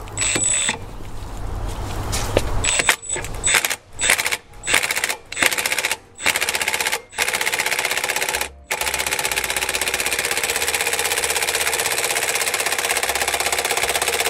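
Cordless impact driver hammering on the centre bolt of a flywheel puller to draw the flywheel off a Honda GX340 engine's crankshaft. It gives several short bursts of rapid impacts, then a long continuous rattle of impacts from about nine seconds in.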